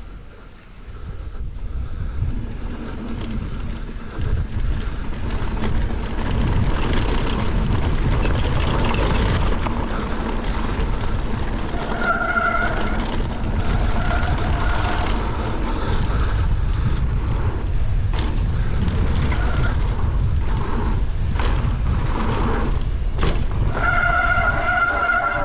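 Mountain bike riding downhill: wind rushing over the camera microphone and a steady rumble of tyres on dirt, building over the first few seconds. Short high whines from the disc brakes squealing come several times around the middle and again near the end.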